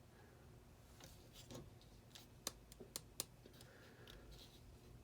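Near silence broken by a few faint plastic clicks from handling an old Black & Decker drill, four in quick succession about two and a half seconds in.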